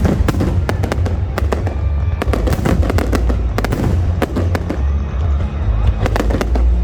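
Fireworks bursting overhead: a rapid, irregular run of sharp bangs and crackles over a deep continuous rumble of booms.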